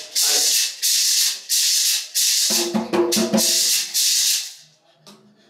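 Gourd maraca shaken in a puya rhythm: a run of hissy shakes at a steady pulse, about two a second, that stops about four and a half seconds in. A voice joins briefly in the middle.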